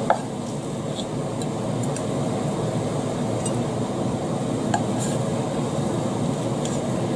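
Steady low background noise with a few light clicks and taps as mushroom slices are spooned onto a steak sandwich on a glass plate.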